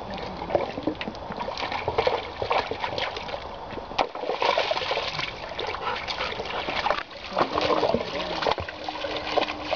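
A Weimaraner splashing in a shallow rocky stream, pawing and nosing at the stones under the water: a run of irregular splashes.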